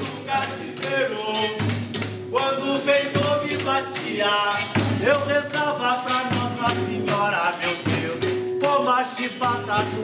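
A group of people singing a song in Portuguese over rhythmic hand percussion, with shaker and tambourine-like strokes and a low pulsing beat keeping a steady rhythm.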